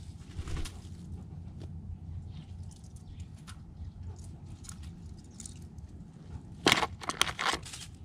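Light crackles and taps as a blue jay moves about on dry leaves and picks at in-shell peanuts in a cardboard box, with a burst of several louder sharp clicks near the end.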